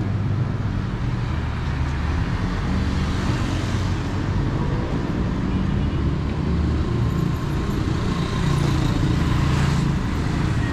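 Busy street traffic: vehicle engines running close by with a steady low hum, swelling as vehicles pass about three seconds in and again near the end.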